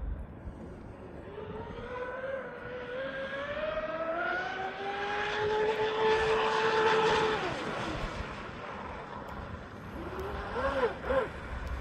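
A fast electric RC racing catamaran running on 6S batteries, its motor whine climbing in pitch as it speeds up. The whine holds high, then drops sharply as the boat passes. A short wavering burst of whine follows near the end, as the throttle is blipped.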